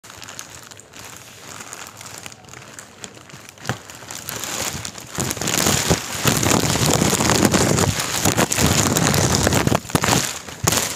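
A large clear plastic bag rustling and crinkling as it is pulled off a photocopier, with many small crackles, louder from about halfway through.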